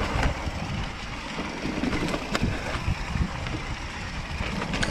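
Hardtail mountain bike riding down a dirt singletrack: a steady rumble of tyres over ground and wind on the microphone, with frequent short rattles and knocks from the unsuspended frame and chain over roots and rocks.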